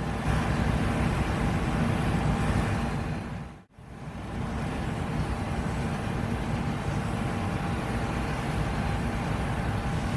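John Deere S780 combine running steadily while harvesting wheat, a constant machine noise with a deep rumble and a few steady hums. The sound dips out briefly about a third of the way in, then comes back unchanged.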